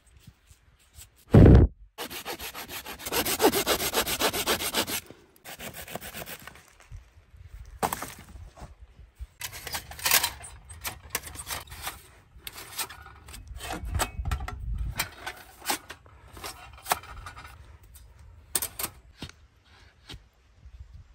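Hand saw cutting wood in several bursts of strokes with pauses between them, the longest run early on. There is a heavy thump about a second and a half in.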